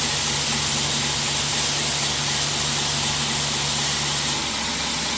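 2x72 belt grinder running with a rubber shoe sole pressed against its moving abrasive belt to clean resin-clogged grit: a steady loud hiss over the motor's hum, easing a little about four seconds in.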